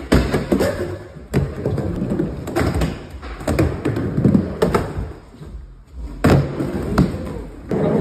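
Skateboard riding a wooden mini ramp: urethane wheels rolling with a low rumble, broken every second or so by sharp clacks and thumps as the board's tail and trucks hit the coping and the ramp.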